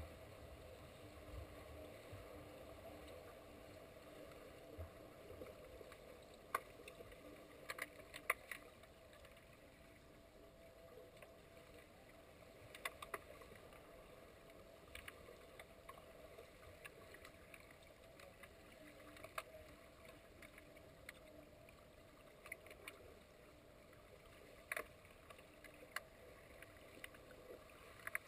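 Faint underwater pool ambience picked up by a submerged camera: a steady low hiss and hum, broken by scattered sharp clicks and knocks, a few in quick pairs.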